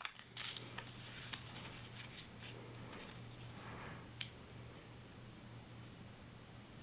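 Close handling noises of a small paper sticker sheet and plastic toy parts: soft rustles and light clicks as stickers are peeled and pressed on, with one sharper click about four seconds in.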